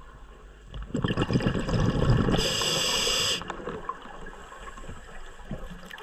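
Scuba diver's breathing through the regulator underwater: exhaled bubbles gurgle out for about a second and a half, then a short hiss of air as the next breath is drawn, cutting off sharply.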